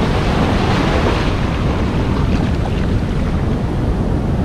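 Ocean surf washing over a beach, with wind noise on the microphone.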